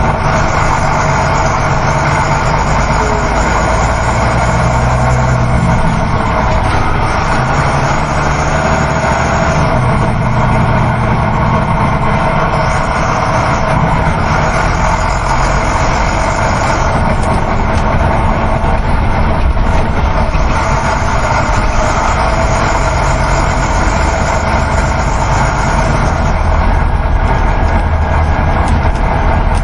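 Coach bus on the move, heard from inside the cabin: a steady engine drone mixed with continuous road and wind noise.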